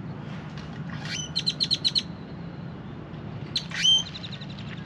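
Songbird singing loudly. It gives a rising whistle that breaks into a quick run of about six sharp repeated notes, then a couple of seconds later another rising whistle followed by a fading trill. A steady low hum runs underneath.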